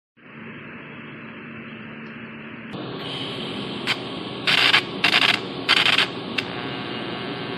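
Electric arc welding on a corroded steel ultrasonic-cleaner tank to patch it: a steady hiss, then about three seconds in the arc strikes, with three short loud bursts a little after four seconds in, followed by a steady welding hiss.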